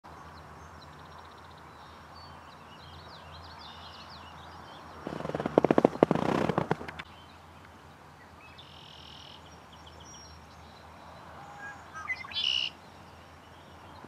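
Small birds chirping and singing across an open meadow. About five seconds in comes a loud, rapid rattle of clicks lasting about two seconds, and near the end a short, loud, high call.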